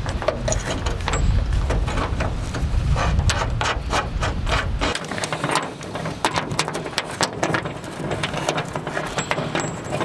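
Hands fitting painted plastic trim onto a pickup's bed rail with bolts, washers and plastic push clips: a quick run of small clicks, taps and rattles of hardware and plastic. A low rumble under the first half stops abruptly about five seconds in.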